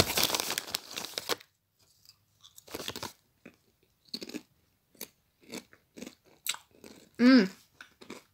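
A person chewing potato crisps: repeated, irregular crunches, denser and louder in the first second or so. A short voiced sound from the eater about seven seconds in.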